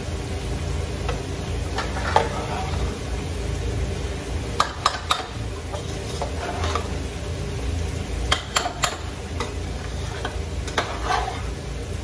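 A long slotted metal spoon stirring and lifting rice in a large aluminium pot, scraping and clinking sharply against the pot every few seconds over a steady low rumble.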